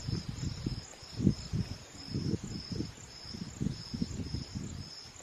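An insect chirping steadily outdoors in short high pulses, about two to three a second, with irregular low rumbling bumps underneath.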